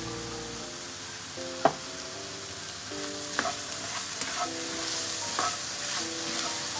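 Diced eggplant and onion sizzling in a hot frying pan while a spatula stirs and scrapes them, with a few sharp knocks of the spatula against the pan, the loudest about a second and a half in. Soft background music plays underneath.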